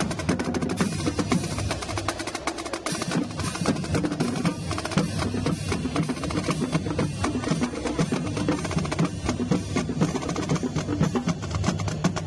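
Marching drumline playing: snare drums, tenor drums and bass drums in dense, rapid strokes.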